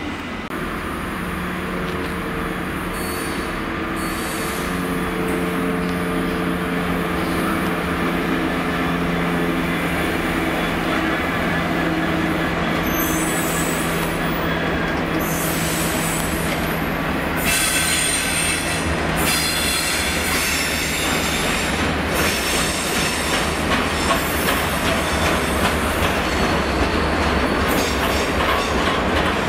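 EWS Class 66 diesel locomotive, a two-stroke V12, running with a steady engine note as it draws through. From about halfway in, its train of freight wagons rolls past with wheels squealing on the rails.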